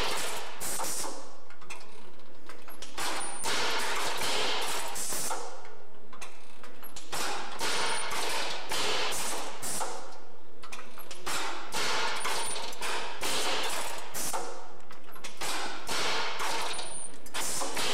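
A mechanical test rig repeatedly cycling a door panel and latch against a metal frame: a string of clanks and rattles, one every second or two.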